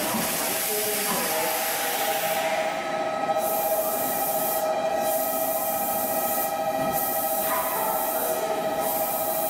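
Meitetsu electric commuter train pulling slowly into the platform and stopping, with a steady whine from its equipment and a hiss of air.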